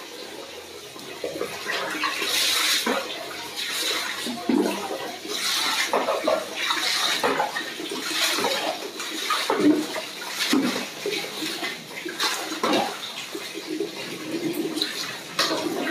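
Water splashing and sloshing in irregular bursts about every second or two, as water in a plastic basin is scooped and stirred in a tiled bathroom.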